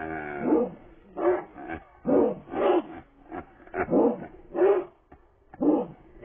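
A dog barking in a string of short barks, about nine in all, roughly two a second. The first bark is longer and drawn out.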